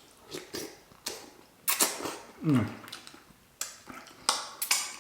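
Close-miked eating: a series of sharp crunching, crackling bites and chews, with a short falling 'mm' from the eater about two and a half seconds in.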